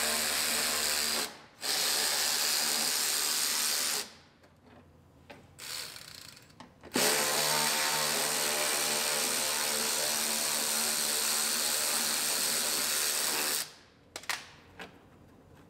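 Cordless power tool running at a steady speed in three stretches, backing out fasteners at the bottom of a car's front fender: a run of about a second, a brief pause, a run to about four seconds in, then after a quiet spell a run of about six seconds.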